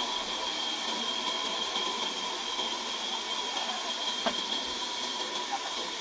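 Sawmill machinery running steadily: a continuous hiss with a steady high whine, and a single sharp click about four seconds in.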